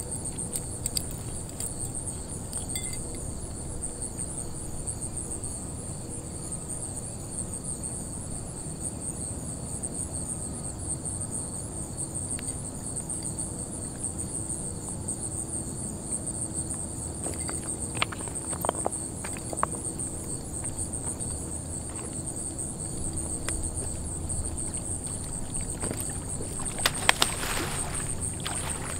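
Insects chirring in a steady, high-pitched chorus, over a low rumble. A few faint clicks come past the middle, and a short, louder burst of noise near the end.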